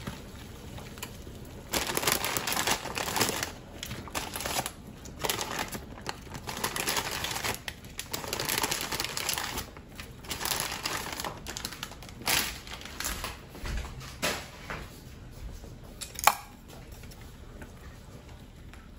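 Plastic noodle bag crinkling in irregular bursts as bundles of egg noodles are pulled out and dropped into a pot of boiling water, over the steady sound of the water. Near the end, one sharp knock.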